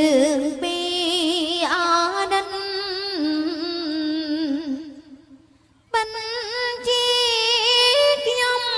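Khmer rangkasal song: a woman singing a slow melodic line with heavy vibrato over sparse accompaniment with no bass or drums. The voice breaks off for about a second in the middle, then comes back on a higher note.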